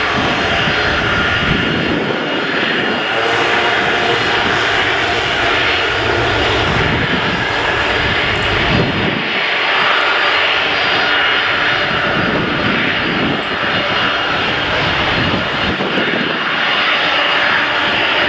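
Airbus A330-243F freighter's Rolls-Royce Trent 700 jet engines at taxi power, a steady, continuous whine and rush with a fluctuating low rumble beneath.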